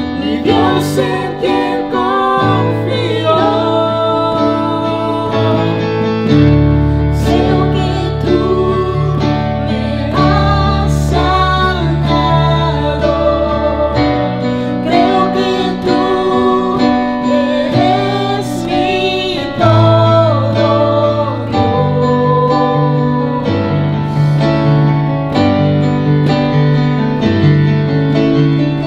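A man and a woman singing a Spanish-language Christian worship song together, over electronic keyboard accompaniment with sustained chords and bass.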